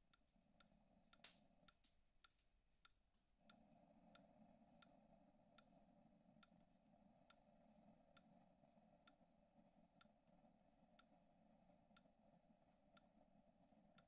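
Braun Type 3104 drip coffee maker making faint ticking sounds over a low steady hum. The ticks come irregularly for the first few seconds, then settle to about one a second. The hum drops out briefly about two seconds in.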